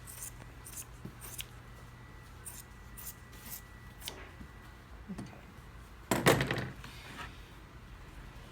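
Scissors snipping through upholstery fabric in several short cuts, trimming off the excess. A louder clatter follows about six seconds in.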